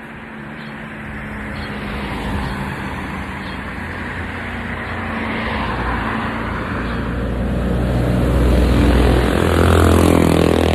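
A motor vehicle's engine drawing nearer and growing steadily louder, loudest near the end as it passes close by.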